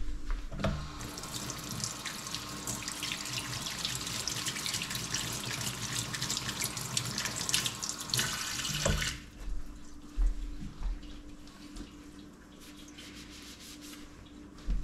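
Kitchen faucet running into a stainless steel sink while a hand is rinsed under the stream. It comes on just under a second in and shuts off about nine seconds in, followed by a few soft handling thumps.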